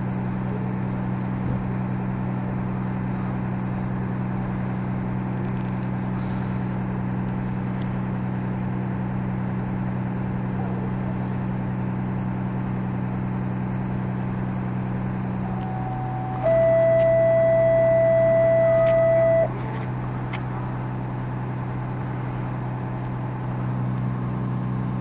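Steady low hum of idling vehicle engines. Just past the middle, a loud steady single-pitched tone sounds for about three seconds, then stops.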